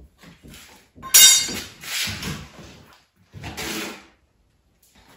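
Drywall being pried and pulled off the bottom of a wall, breaking away in a few separate scraping, crunching pulls, the loudest about a second in.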